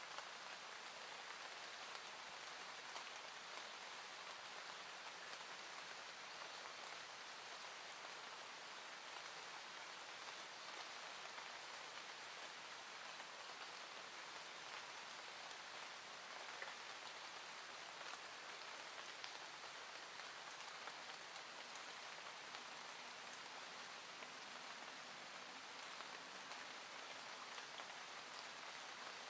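A soft, even hiss with a fine patter, like light rain falling, unchanging in level.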